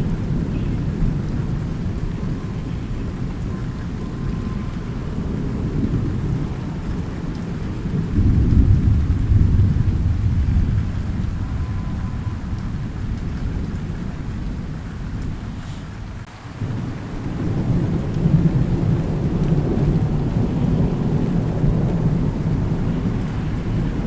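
Thunderstorm: steady rain with low rolling thunder. A rumble swells about a third of the way in and dies away, and another builds up soon after the middle and carries on.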